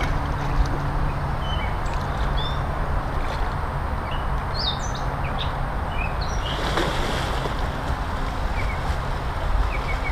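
Steady wind rumble on the microphone, with small birds chirping again and again, and pond water sloshing as a person wades in and starts swimming.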